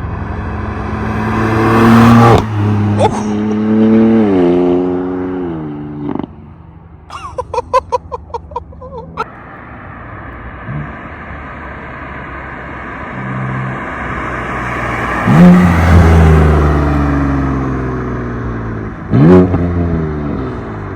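BMW M3/M4 S55 twin-turbo straight-six exhaust with the exhaust valves opened, accelerating hard and shifting. After the first pull it lifts off with a rapid string of pops and crackles, then pulls up again later with another shift near the end.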